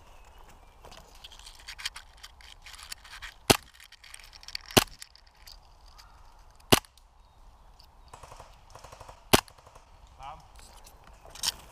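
Airsoft gun fired in single shots: four sharp, loud cracks spaced one to two and a half seconds apart, with a weaker one near the end.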